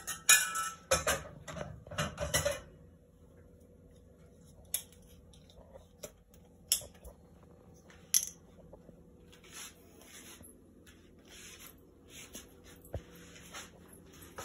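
Ceramic dishes clinking and tapping on a stone countertop as a plate and soup bowl are moved about: a quick clatter of clicks over the first two and a half seconds, then a few single taps.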